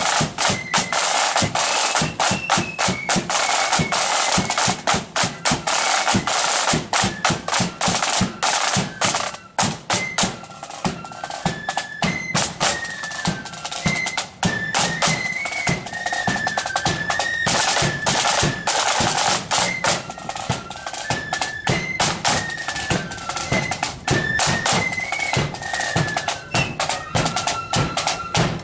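Marching flute band playing: a high flute melody over rapid snare drumming and bass drum beats.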